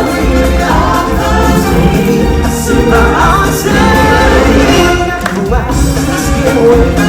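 Music with a group of voices singing together over a steady bass line.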